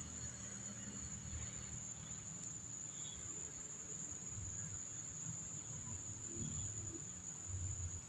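Faint, steady high-pitched insect trill, with a soft low rumble underneath.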